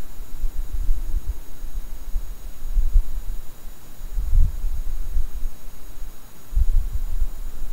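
Irregular low rumbling that rises and falls in gusts, loudest about halfway through and again near the end.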